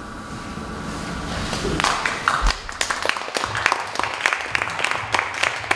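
Audience applause, starting about two seconds in and building to steady clapping.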